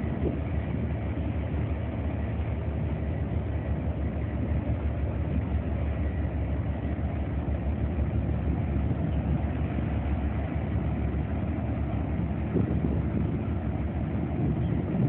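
Engines of the Flying Cat 5 high-speed catamaran running at low power as it manoeuvres away from the quay, a steady low drone.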